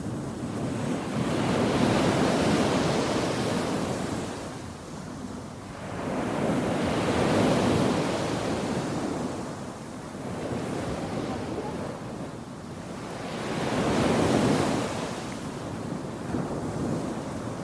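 Surf washing onto a shore, swelling and fading in three slow waves, with wind buffeting the microphone.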